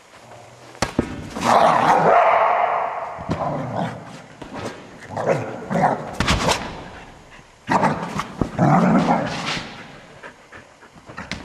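Australian Shepherd barking in play, in three loud bouts of a second or two each, with sharp clicks in between.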